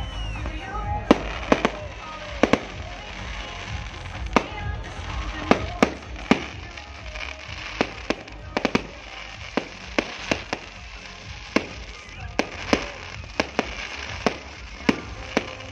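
Aerial fireworks bursting in an irregular run of sharp bangs and pops, about two a second, over background music.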